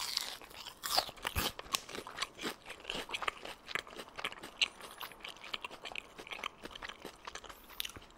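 Crunching and chewing on a bite of deep-fried pork coated in sweet potato starch batter with turmeric. The crisp coating gives many sharp, irregular crunches in quick succession.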